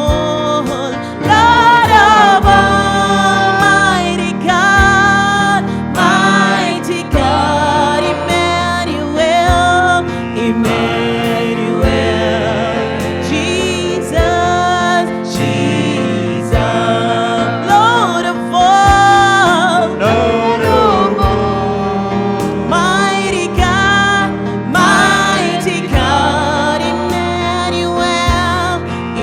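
Gospel worship song: a singer's voice held in long melodic phrases over keyboard and drums with a steady beat.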